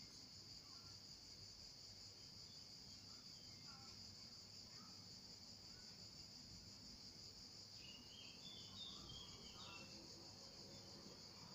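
Near silence: quiet room tone with a faint, steady high-pitched drone.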